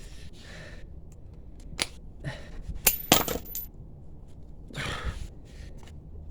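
A few separate metallic clinks and taps from hand tools working on a motorcycle drive chain's split link, the loudest a sharp clink about three seconds in, then a brief scraping rustle.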